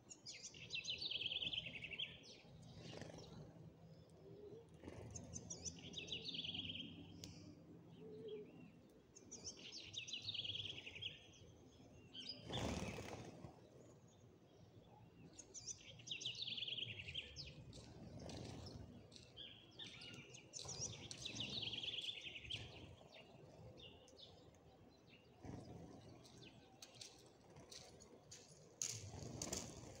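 A songbird singing the same short, fast trilled phrase over and over, about once every five seconds, with a brief whoosh about halfway through.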